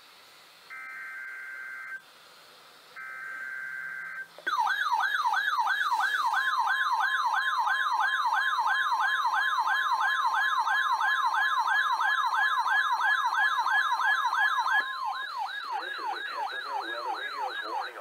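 Two buzzing bursts of SAME digital header data from a NOAA Weather Radio Required Weekly Test, heard through RadioShack weather radios. About four and a half seconds in, the radios' alert sirens start: rapid falling sweeps, about three a second, over a steady alert tone of about 1 kHz that lasts roughly nine seconds. Near the end the sweeps go on more quietly.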